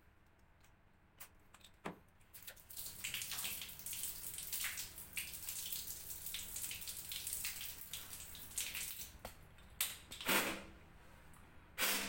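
Water running and splashing from a washing-machine inlet hose for about seven seconds, then stopping. Two sharp knocks come near the end.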